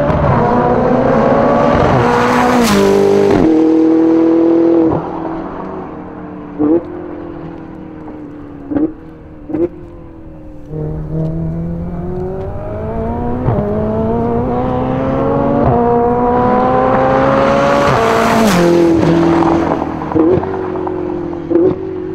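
Ferrari 488 GTB's twin-turbo V8 on an aftermarket Capristo exhaust, making two full-throttle acceleration runs and flybys. Each time the engine note climbs steadily, with an upshift on the second run, then drops sharply as the car passes and fades. Several short sharp cracks follow each pass.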